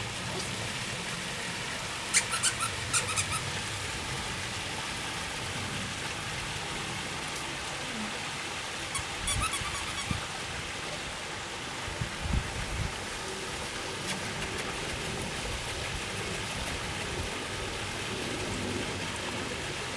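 Steady outdoor background hiss, with a few brief clusters of sharp clicks and two soft low thumps.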